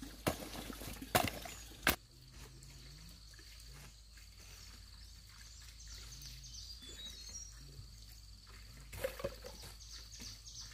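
A hoe strikes and scrapes through soil and dry leaf litter, three sharp chops in the first two seconds. Then it goes quieter: outdoor ambience with a steady high insect drone and a few bird chirps, and a few more hoe strikes near the end.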